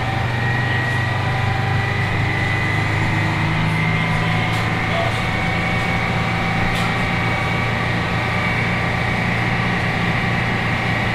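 Detroit Diesel 6V71 two-stroke V6 diesel engine of a 1980 Grumman Flxible 870 transit bus idling steadily, a low drone with a thin high whine over it that slowly rises a little in pitch.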